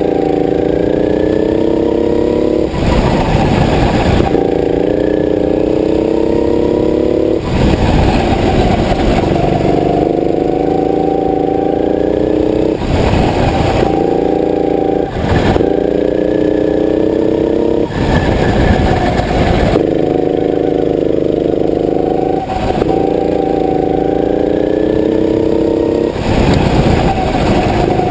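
Go-kart engine heard from on board, its pitch climbing steadily as it accelerates along the straights, then dropping back. Every few seconds a burst of broad rushing noise briefly covers it.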